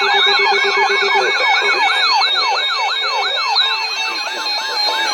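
Several electronic sirens sound at once, each a rapidly repeating falling sweep at about three to four a second, layered over steady held tones. A low steady tone cuts off about a second in.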